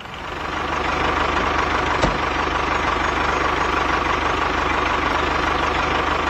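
Small electric motor of a homemade mini tractor running steadily, with a steady whine over a whirring rattle. It builds up over the first second, and there is a single click about two seconds in.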